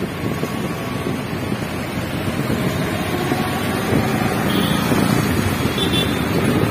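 Wind rushing over the microphone of a moving motorbike, with the bike's engine and the surrounding street traffic running underneath.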